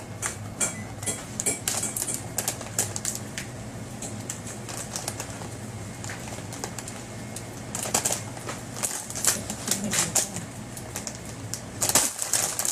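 Plastic packaging rustling and crinkling as it is handled, in short irregular crackles that get busier about eight seconds in and again near the end, over a steady low hum.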